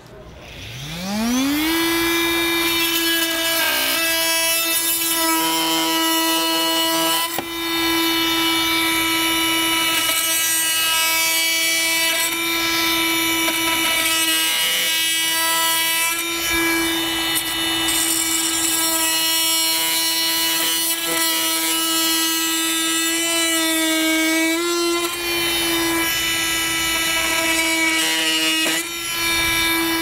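Festool cordless oscillating multi-tool motor spinning up in about a second and a half to a steady high-pitched hum, then running at constant speed, with a brief wobble in pitch about 24 seconds in.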